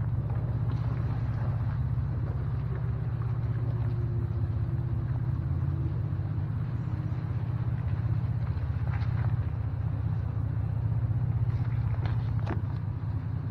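Steady low rumble of a car being driven, with a few faint ticks about nine and twelve seconds in.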